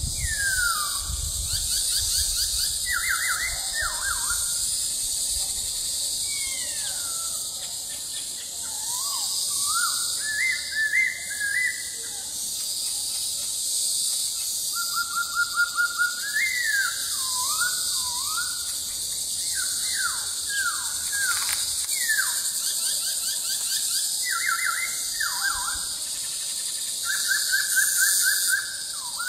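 Black-throated laughingthrush singing: phrases of clear whistled falling slurs and quick runs of repeated notes, with short pauses between phrases.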